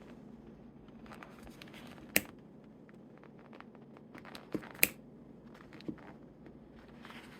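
Plastic baggie crinkling and rustling while pliers pry at the glued halves of a plastic action figure, with a few sharp plastic clicks, the loudest about two seconds in and two more close together near the middle.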